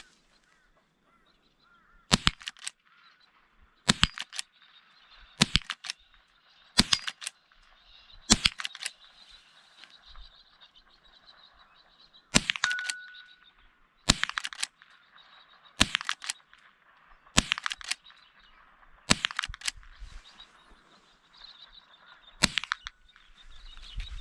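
Rifle shots fired one after another at a steady pace, about eleven in all, roughly one every second and a half to two seconds, with a pause of about four seconds partway through.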